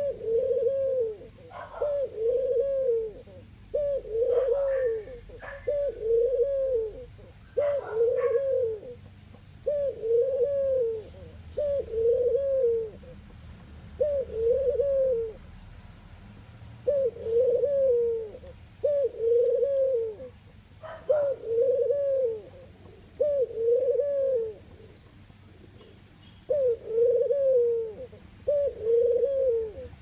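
Ringneck dove cooing: a steady series of short, low coos, about one a second, with brief pauses about halfway through and again near the end.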